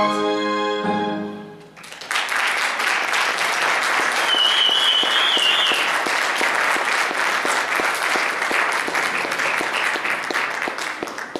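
Orchestral music with strings ends on a held chord that dies away in the first couple of seconds. Then the audience bursts into steady applause that fades near the end, with one short wavering whistle about four seconds in.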